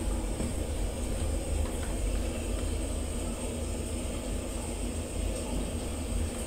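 Steady low rumble and hiss of indoor room ambience, with a faint steady high whine and a few faint ticks.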